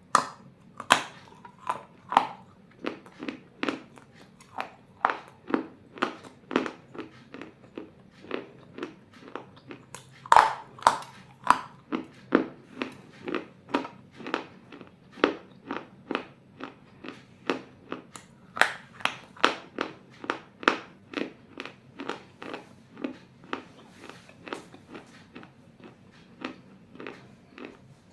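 Close-up crunching of small fired-clay bowl pieces being bitten and chewed: a steady run of sharp crunches, about one and a half a second, a few louder bites standing out.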